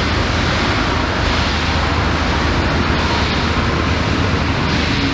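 Heritage passenger carriages rolling past at speed: a steady, loud rushing noise of wheels on the rails and moving air.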